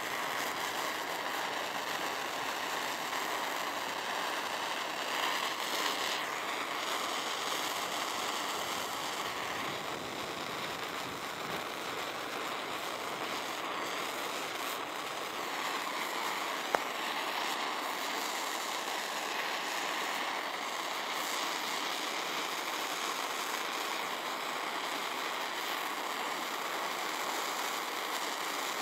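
Handheld propane torch burning with a steady hiss while its flame chars the surface of a wooden spoon. A single sharp click about 17 seconds in.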